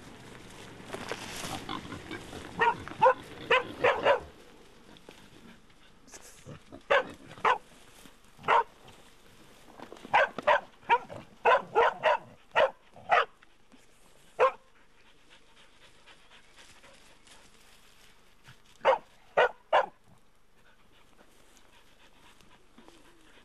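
Young pig dogs barking in short bursts while bailing a young boar. The barks come in clusters with quiet gaps, the longest gap falling about two-thirds of the way through.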